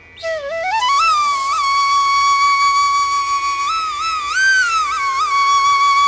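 Background music: a solo flute melody that glides up into one long held note, bends upward and back a couple of times, and slides down near the end.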